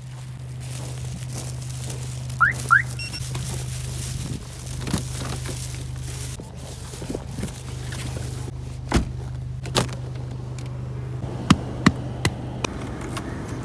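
A Subaru Legacy sedan's engine idling with a steady low hum. About two and a half seconds in come two short rising chirps like a car alarm being disarmed. Near the end the door handle and driver's door give several sharp clicks and knocks as the door is opened.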